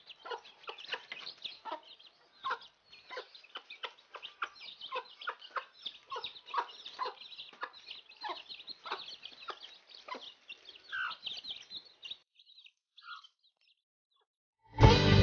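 Mother hen clucking over and over among her peeping chicks as they feed on rice. The calls die away about twelve seconds in, and loud guitar music starts just before the end.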